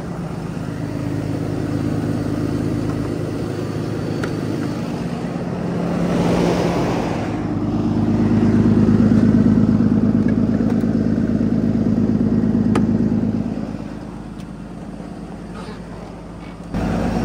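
Cummins diesel engine of a 2016 International hook-lift truck idling steadily, freshly started after sitting and not yet warmed up. The idle grows louder for several seconds in the middle.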